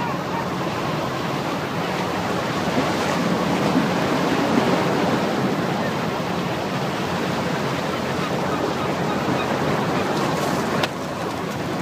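Steady outdoor rushing noise, like wind and surf, with no clear single source. A sharp click comes near the end, after which the noise is a little quieter.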